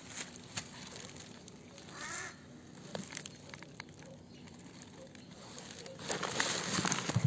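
Birds crowding around food: scattered sharp clicks and a short call about two seconds in, then a loud burst of wing flapping near the end.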